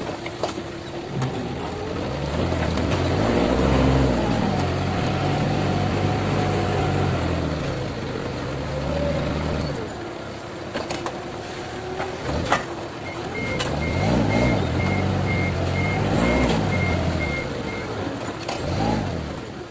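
Forklift engine running and revving up and down in long swells as the hydraulic levers of the paper roll clamp are worked. A high warning beeper sounds about twice a second in the second half, and there is one sharp clunk just before it starts.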